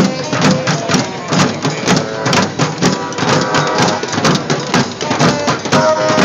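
Drum circle of hand drums such as congas, with a bass drum, beating a quick steady rhythm of about four to five strikes a second.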